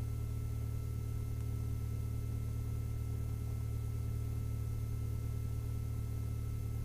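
Lycoming IO-360 four-cylinder fuel-injected engine of a 1967 Mooney M-20F idling during warm-up before the run-up, heard from the cockpit as a steady low drone with a faint steady whine.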